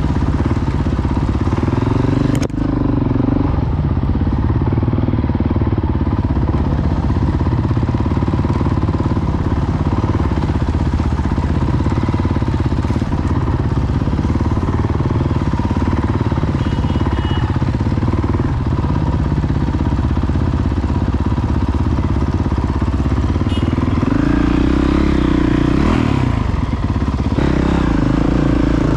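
Motorcycle engine running steadily while being ridden, over a dense low rumble. There is a sharp click a couple of seconds in, and the engine note rises briefly near the end.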